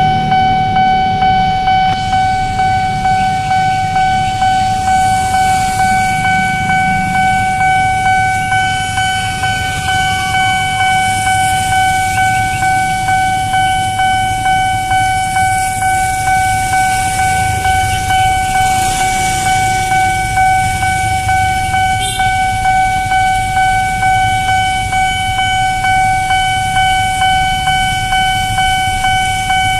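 Level-crossing warning alarm sounding, a factory-fitted electronic unit giving a steady ringing tone that pulses at an even beat, the signal that a train is coming and the gates are down. Queued traffic rumbles underneath.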